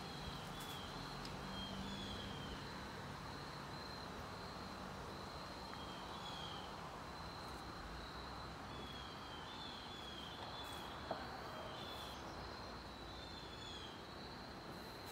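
Outdoor ambience: a steady high-pitched insect drone with many short repeated chirps over it, and one faint click partway through.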